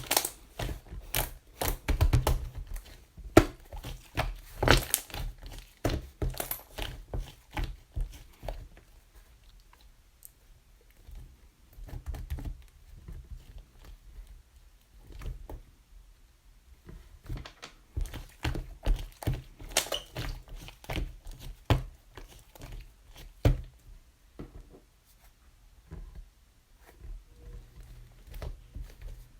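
Irregular knocks, thuds and crinkling, like objects and wrapping being handled, busiest at the start and again past the middle with a quieter stretch between.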